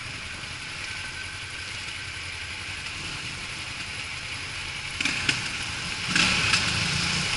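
Suzuki GW250 Inazuma motorcycle's parallel-twin engine running under a steady rush of wind noise. It grows louder after about five seconds, with a couple of clicks.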